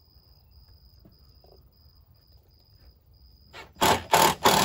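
Cordless drill-driver driving a screw into wooden deck blocking, starting near the end: two short bursts, then a longer steady run that pulls the board tight.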